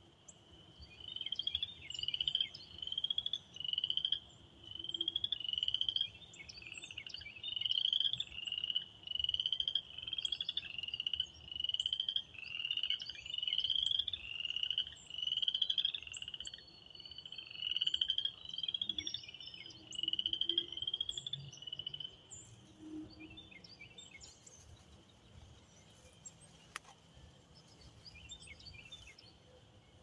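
Spring peepers calling: one frog close by peeps about once a second, each peep a short rising whistle, over a steady chorus of more distant peepers. The close frog stops a little over twenty seconds in, leaving the chorus going.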